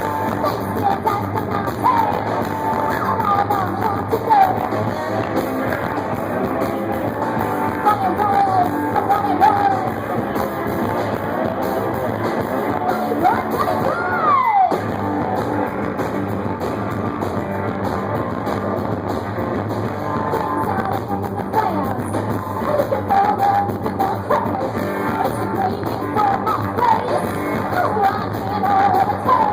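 Live punk-blues rock band playing loud, with singing over electric guitar and drums. A long sung or slid note rises and falls about halfway through, and the sound drops out for an instant just after.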